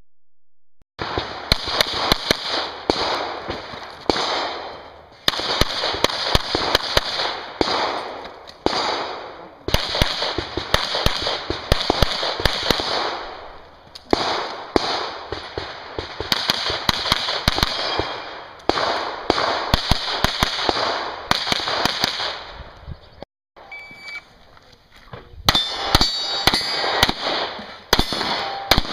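Smith & Wesson M&P 9L 9mm pistol fired in rapid strings of shots, several a second with short breaks, each shot sharp and ringing. There is a brief lull near the end before the shooting starts again.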